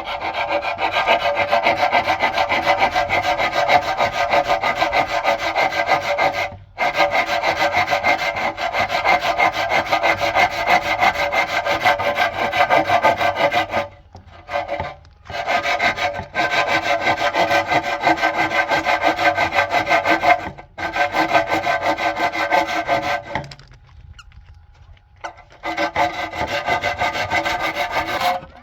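Continuous fast scraping or rasping, with a faint ringing pitch under it, stopping briefly several times and once for about two seconds, a little over three-quarters of the way through.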